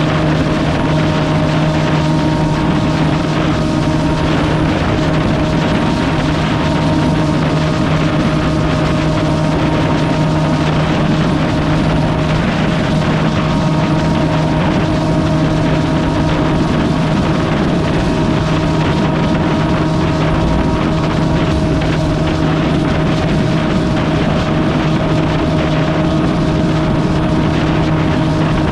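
A vehicle engine running at a constant speed, a steady unchanging drone, over a rush of wind noise.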